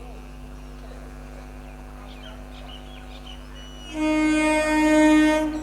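Electric multiple unit train's horn sounding once for about a second and a half, a loud pitched blare, about four seconds in, over a steady low hum with faint birds chirping before it.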